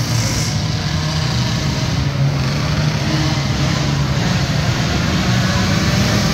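Several 50–90cc youth ATVs running together around a dirt track, a continuous engine drone whose pitch wavers a little as the quads pass.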